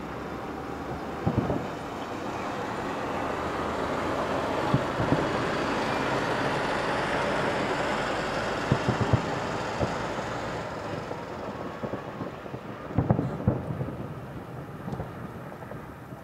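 Aerial fireworks shells bursting, with sharp bangs in small clusters about every four seconds, over a rushing noise that swells and then fades.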